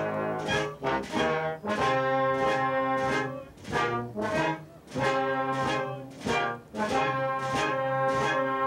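Background music played on brass instruments: held notes and chords that change about once a second.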